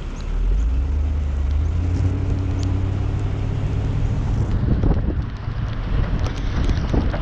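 Engine of heavy logging machinery running at a steady low pitch, with wind buffeting the microphone and rattling knocks in the last two seconds.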